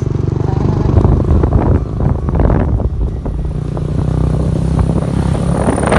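An engine running at a steady speed, a low, even hum.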